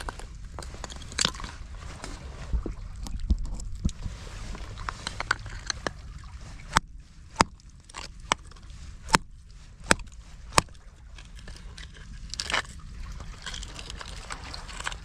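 Shallow seawater sloshing and trickling in a rock pool as a hand grips and shifts stones. In the middle comes a run of six sharp clicks, evenly spaced under a second apart.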